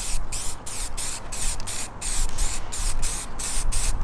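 Aerosol spray paint can hissing in short, quick bursts, about three a second, as a coat of paint is laid onto a plastic bumper grille.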